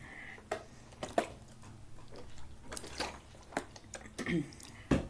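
A person chewing taco gratin close to the microphone, with about five sharp clicks of cutlery on the plate.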